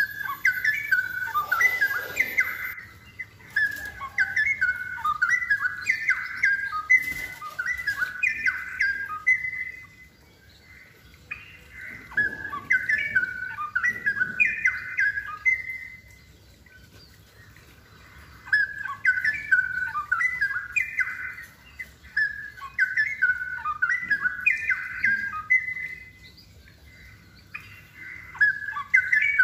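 Straw-headed bulbul (cucak rowo) in full song: loud phrases of fast, jumping, warbled notes, in four bursts broken by pauses of a second or two.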